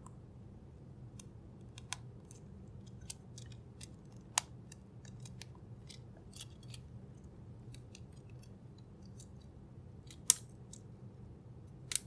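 Small plastic clicks and snaps of Cherry MX stabilizers being handled and fitted into a keyboard PCB. The clicks come irregularly, with a sharper snap about ten seconds in.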